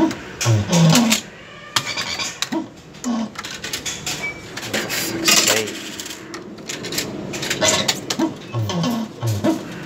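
Astra Jungle Jive fruit machine's electronic jingle, a short rising run of beeping tones repeated several times, with sharp clicks from the reels and buttons and arcade clatter. It plays as a win is added to the bank.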